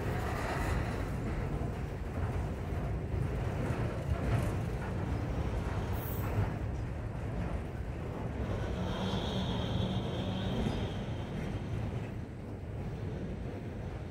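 Freight train of enclosed autorack cars rolling past close by: a steady rumble and clatter of steel wheels on rail. A thin high tone comes in about nine seconds in and fades out about two seconds later.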